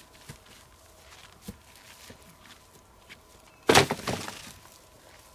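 A long dry dead branch dropped onto the ground, hitting with one loud crack about three and a half seconds in, followed by a short crackle of wood. Light footsteps and rustling in dry grass come before it.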